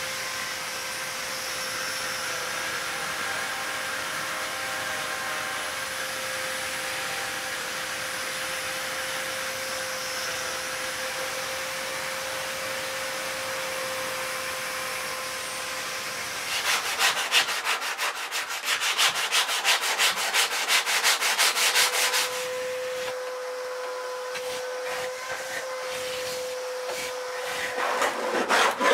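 Electric palm sander running steadily with a motor whine as it sands a painted wooden panel. About two-thirds of the way in, the whine stops for several seconds and quick, louder scratchy strokes of hand sanding take over. Then the machine sanding resumes.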